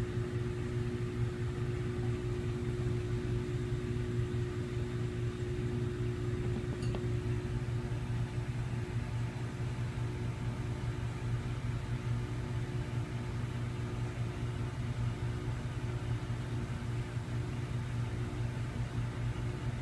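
Steady low mechanical hum of a machine running, unchanging throughout, with a single faint click about seven seconds in.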